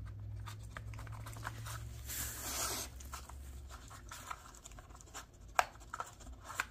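Border Collie nosing and pushing the plastic pieces of a dog puzzle feeder: small plastic clicks and scrapes, with a short rushing noise about two seconds in and a sharper click near the end. A low steady hum underlies the first half.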